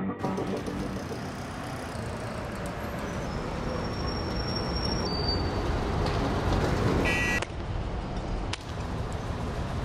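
City road traffic: a steady rush of passing vehicles, with a short high tone with several pitches about seven seconds in.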